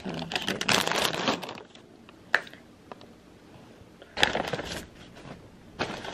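Paper takeout wrappers and a paper bag rustling and crinkling as they are handled, in bursts with a sharp click a little over two seconds in.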